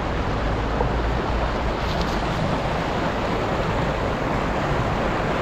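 Fast-flowing glacial meltwater stream rushing steadily.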